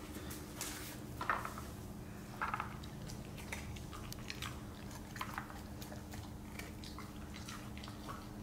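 Siberian husky nosing and pawing at a layered plastic treat puzzle on a tile floor: scattered light clicks and knocks of the plastic, with a few short rustling bursts, over a steady low hum.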